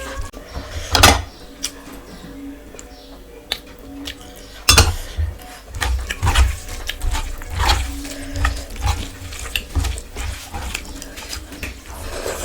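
Close-up eating sounds: chewing and mouth noises with many short clicks and taps of food against a plate, including a louder knock about a second in and another near five seconds.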